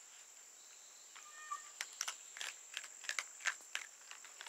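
Two young raccoons crunching dry kibble from their bowls: sharp, irregular crunches several times a second from about two seconds in. Just over a second in there is a short high-pitched animal call.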